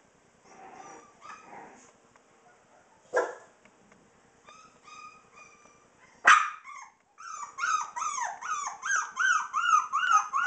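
Olde English Bulldogge puppies whining and yipping. There are a few faint squeaks and a short sharp noise about three seconds in, then one loud yelp about six seconds in. After that comes a rapid string of high, rise-and-fall whining yips, about three a second.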